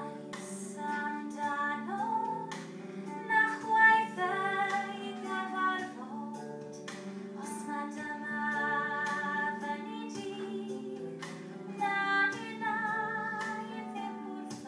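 A woman singing a slow melody over a steady sustained drone accompaniment.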